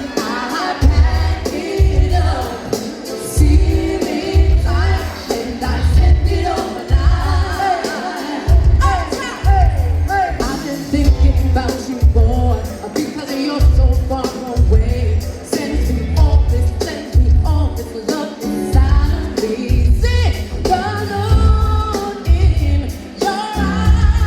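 Live hip-hop/R&B music: a sung melody over a heavy bass beat that pulses about once a second.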